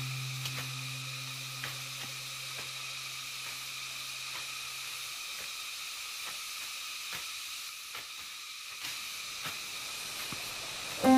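Steady hiss with scattered faint clicks and taps. A held low music note fades out over the first half, and music returns sharply right at the end.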